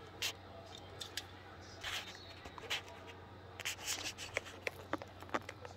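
Light rustling and irregular small clicks of small objects being handled in the hand at a workbench, thicker toward the second half, over a low steady hum.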